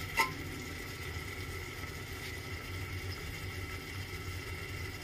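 Steady low hum with the faint sizzle of tomato masala cooking in an aluminium pot, and one light clink of the metal spatula against the pot just after the start.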